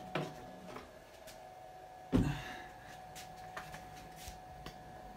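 Hinged plywood front panel of a CNC enclosure being lowered and shutting with one wooden thump about two seconds in, with a few light clicks around it. A faint steady high hum runs underneath.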